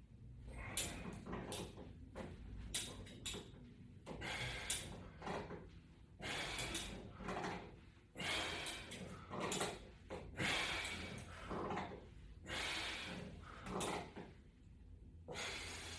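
Soft rustling and rubbing from a resistance-band cross-pull exercise, a short noisy swish with each movement roughly every second or two, over a faint steady low hum.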